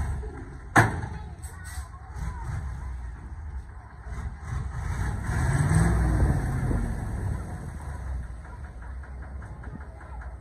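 Heavy dump truck's diesel engine running as the truck creeps forward with its bed raised, tipping out soil. There is a sharp bang about a second in, and the engine revs up and falls back around the middle.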